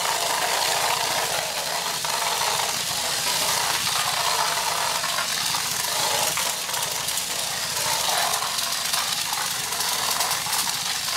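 Crush Gear toy battle car's small battery-powered electric motor whirring, with a dense, steady clatter of its plastic wheels and parts as it spins and skids around a plastic arena. It runs unevenly, which the owner thinks may come from plastic burrs left on the wheels where he trimmed them with nippers.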